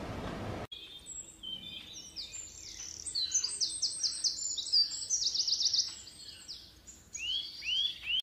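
A songbird singing a fast, varied twittering song of high chirps and slides, with a quick trill in the middle and a few rising upswept notes near the end. It follows an abrupt cut from a steady outdoor noise haze less than a second in.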